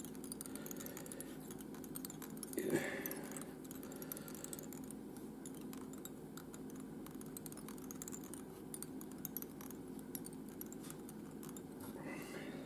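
Quiet room tone with a steady low hum and faint scattered clicks of small handling noises, with a brief louder sound about three seconds in and another near the end.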